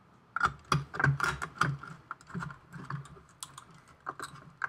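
Irregular small clicks and taps of screws, a screwdriver and an Arduino Uno circuit board being handled as the board is screwed onto the robot's laser-cut chassis.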